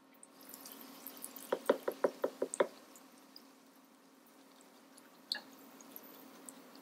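Slotted spatula pressing a puri in hot deep-frying oil, knocking against the bowl about seven times in quick succession, then once more, over a faint sizzle of the oil.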